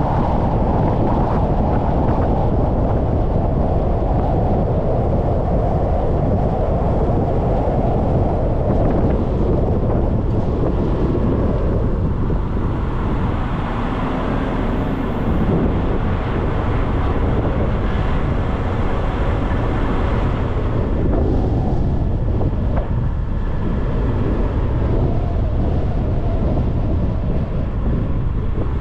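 Wind rushing over a hood-mounted GoPro on a moving car, with road noise underneath. A brighter hiss joins in for several seconds in the middle.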